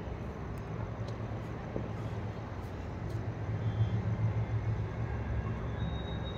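Steady low rumble of outdoor background noise, a little louder just past the middle, with a few faint clicks.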